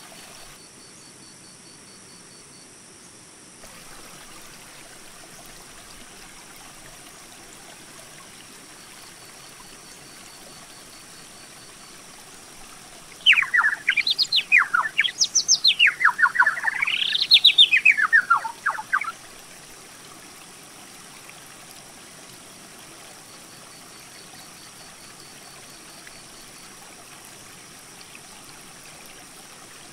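A songbird sings one loud song of rapid notes lasting about six seconds, partway through, its pitch sweeping up and down. Under it runs the steady rush of a mountain creek.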